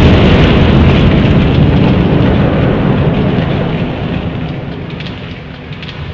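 Heavy wooden furniture crashing onto a concrete floor: a long, loud rumbling crash that slowly dies away, with a few small clatters of settling debris near the end.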